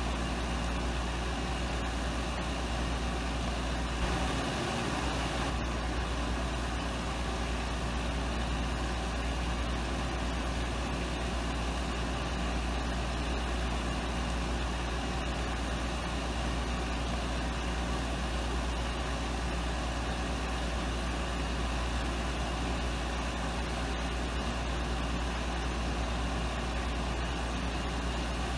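Delivery truck idling, a steady engine hum that does not change, with one brief low thump about four seconds in.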